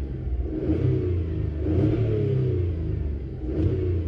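Skoda Fabia 1.2 three-cylinder petrol engine revved up and let drop back toward idle, peaking about two seconds in. The engine is misfiring on cylinder 2.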